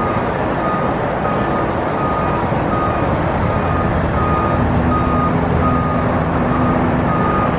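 A heavy vehicle's backup alarm beeping steadily, about three beeps every two seconds, over the rumble of its running diesel engine. A steadier, lower engine tone joins about halfway through.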